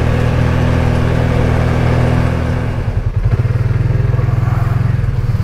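ATV engine running steadily; about three seconds in its note drops and changes to a lower, pulsing beat, a little louder.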